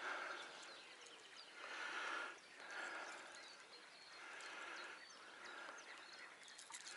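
Legs wading through shallow river water: a slow, uneven run of soft watery swishes, one step every second or two, as the wader feels over a stony bottom.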